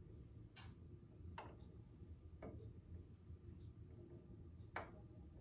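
Near silence with a few faint, unevenly spaced clicks, the sharpest near the end, from the springboard's springs and roll-back bar shifting under light tension as the bar is held and moved.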